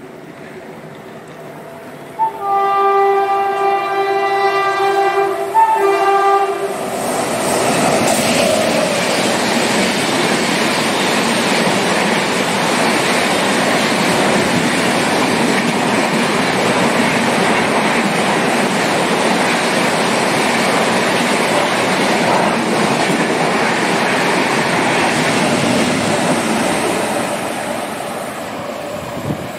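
Rajdhani Express running through a station at speed. Its locomotive sounds its horn for about four seconds, with a short break near the end. Then the coaches rush past in a long steady roar of wheels on rail that eases off near the end.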